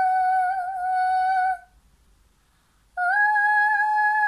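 A high voice singing two long held notes with a gap between them; the first settles steady after sliding down at its start, the second begins about three seconds in and rises slightly before holding.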